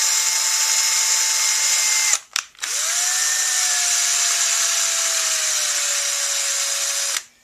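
Cordless drill driving a screw through a varnish-filled hole in a wooden handle, pre-threading the hole through the hardened varnish. It runs in two goes: a steady whine for about two seconds, a brief stop with a click, then a longer run whose pitch slowly falls.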